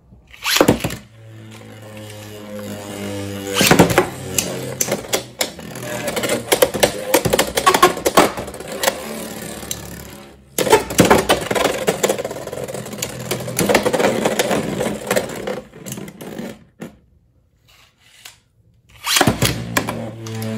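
Beyblade X spinning tops, Cobalt Drake 9-60P and Leon Crest 7-60GN, launched into a plastic Beyblade X stadium, spinning with a steady whirring hum and sharp plastic clacks as they collide. There is a dense run of hits about four seconds in and a brief break about ten seconds in. The sound dies away after about sixteen seconds, and a new launch starts near the end.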